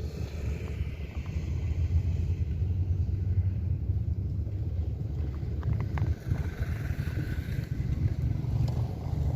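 Low, steady outdoor rumble with a few faint clicks near the middle.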